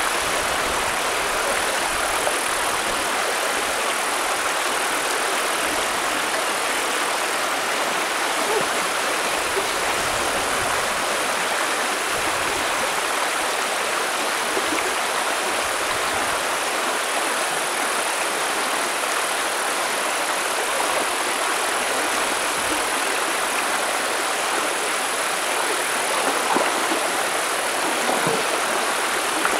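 Shallow stream rushing steadily over rocks and a low stone weir, a continuous hiss of moving water.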